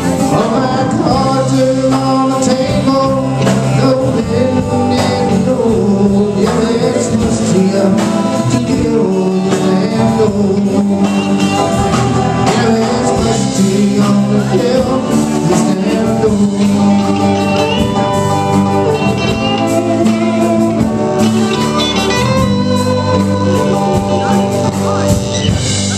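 Live band playing a song: a sung lead vocal over strummed acoustic guitar and electric guitars.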